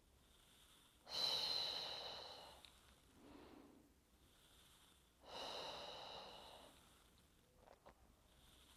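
A woman's paced exercise breathing: two long, audible breaths about four seconds apart, each strongest at the start and fading away, with a softer breath between them and a couple of faint clicks near the end.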